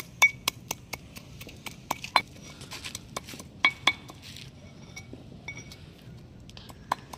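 Pestle pounding in a mortar: a run of sharp clinking knocks, about four a second for the first couple of seconds, then scattered strikes.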